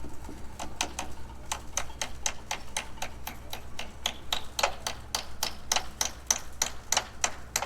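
Hammer driving nails in quick, steady blows, about four a second.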